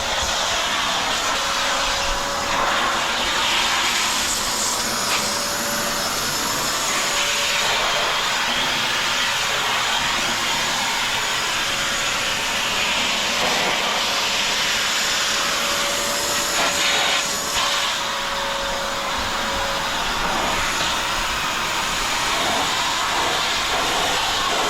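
Vacuum cleaner running steadily, a rushing of air with a thin steady motor whine; the rush shifts slightly in tone now and then.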